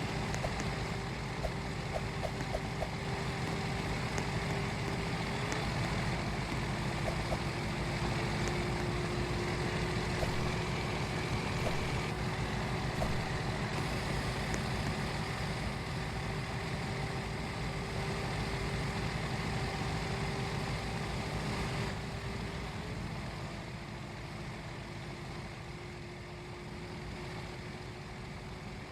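Steady motor vehicle running noise: a low rumble with a faint steady hum over it, dropping a little in level about three-quarters of the way through.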